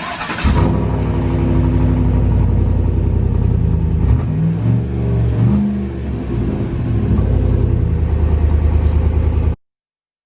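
Pickup truck's 5.3-litre V8 engine running after a short noisy burst at the start, with the pitch rising and falling around the middle as it is revved. The sound cuts off abruptly near the end.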